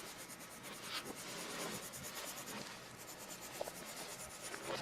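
Faint, steady scratching and rubbing, like a point dragged over paper.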